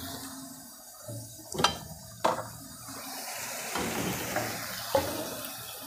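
Onion-tomato gravy with green peas simmering in a kadai, a low bubbling hiss that swells in the middle. There are two sharp clicks of the steel ladle against the pan a couple of seconds in and a lighter one near the end.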